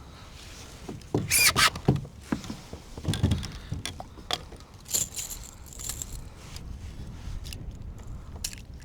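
Fishing gear being handled in a kayak: irregular knocks, clicks and rattles, the loudest cluster about a second in, with more a couple of seconds later.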